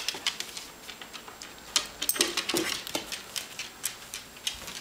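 A small dog's claws clicking and tapping on wooden stair treads and then a tiled floor as it comes down the last steps and walks off: quick, irregular taps.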